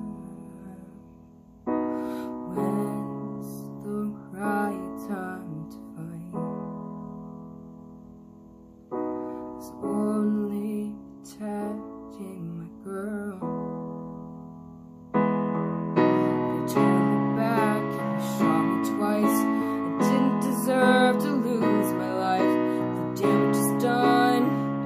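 Piano playing slow chords in an instrumental break of a ballad, each chord struck and left to ring out and fade. About 15 seconds in, the playing grows louder and fuller.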